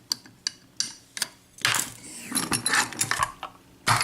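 Small metal clicks and clinks from an opened padlock and lockpicking tools being handled: a few sharp single clicks, then a longer rattling scrape in the middle, and another click near the end.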